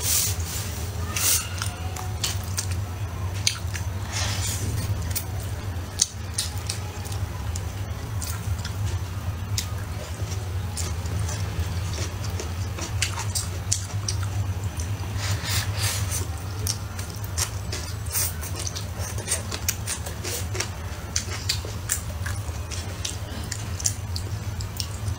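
A person chewing and biting food close to the microphone: scattered wet mouth clicks and small crunches, busier in a few spells, over a steady low hum.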